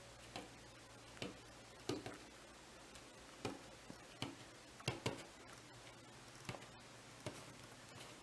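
About ten light, irregular taps and handling noises as a painted foam squishy toy is held, moved about and touched down on a tabletop, over a faint low hum.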